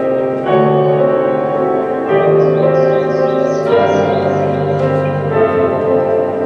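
Grand piano playing slow, held chords, a new chord struck about every one and a half seconds and left ringing.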